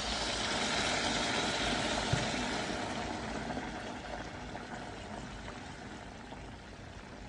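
Water poured into a pot of vegetables sautéing in hot olive oil for a soup, a steady rushing, bubbling noise that is loudest in the first few seconds and then gradually dies down.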